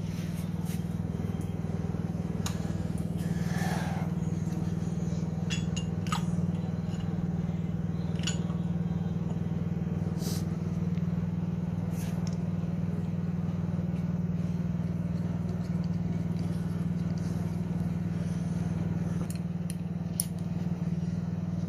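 Small single-cylinder Briggs & Stratton snowblower engine running steadily, with a few light clicks and taps of handling over the hum.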